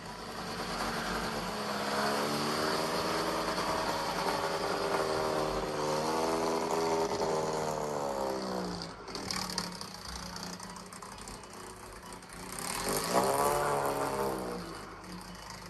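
Alfa Romeo 1900 TI's twin-cam four-cylinder engine revving. Its pitch climbs steadily for several seconds and drops abruptly about nine seconds in. A second, shorter rise and fall of revs comes near the end.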